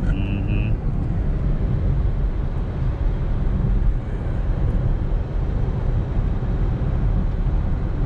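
Steady road noise inside a moving car's cabin: a low, even rumble of tyres, engine and wind. Two short high beeps sound right at the start.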